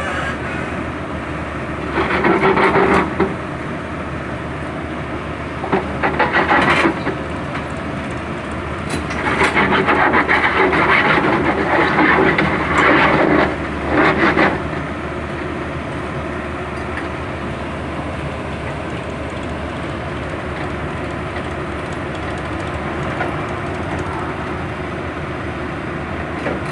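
Excavator's diesel engine running steadily, with louder bursts of machine noise about two seconds in, around six seconds in, and a longer stretch from about nine to fourteen seconds in as the machine works its way off a trailer.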